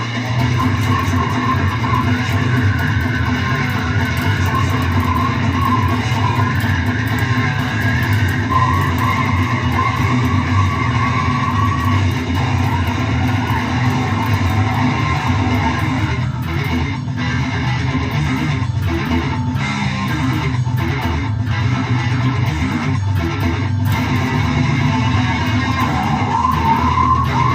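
Brutal death metal recording: loud, dense electric guitars and bass guitar playing without a break. In the second half there is a stretch of short stop-start gaps in the riff.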